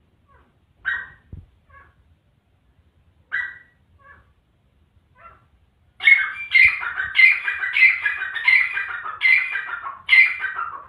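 Grey francolin calling: a few short, spaced-out notes, then, about six seconds in, a loud run of about seven repeated call phrases.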